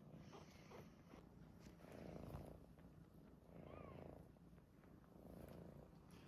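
A domestic cat purring softly, in slow swells about every second and a half. A brief faint high squeak comes near the middle.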